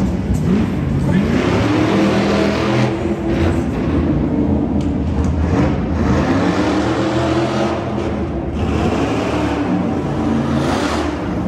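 Truck engine revving up and down several times, its pitch rising and falling as it accelerates and eases off.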